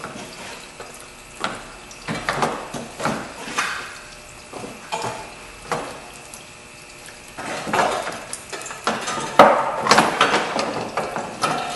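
Irregular clinks and knocks of the radiator fan shroud and fan assembly being worked loose and lifted out of the engine bay, loudest a little past nine seconds in.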